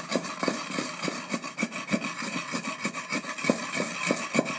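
Pestle pounding and grinding dry red chillies with salt in a kunda mortar for chutney: an even rhythm of strokes, about four a second, with a rough scraping between them.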